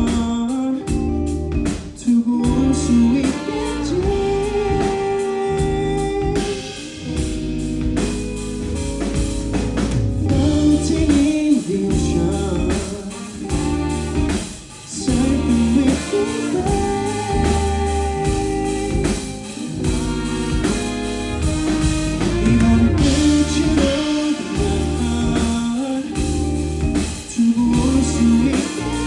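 A live band playing a song with electric guitar, bass and drum kit on a steady beat, under a sliding melodic lead line.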